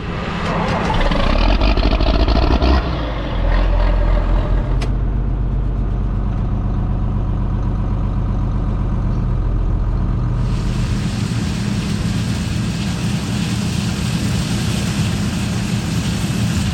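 Large farm diesel engine running steadily and loud. A hiss higher up joins in about ten seconds in.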